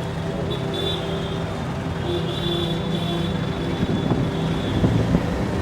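Motor vehicle engine running steadily amid street traffic noise, with a thin high whine coming and going and a few knocks near the end.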